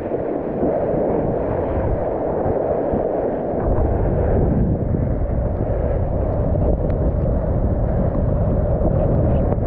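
Strong wind buffeting an action camera's microphone in a steady rumbling roar, mixed with rushing and splashing sea water in choppy surf; the low rumble grows heavier about three and a half seconds in.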